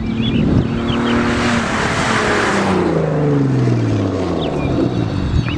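Modified Mazda 6 V6 with a loud dual exhaust driving past. A rush of tyre and exhaust noise peaks about two seconds in, and the engine note drops in pitch as the car goes by. Birds chirp in the background.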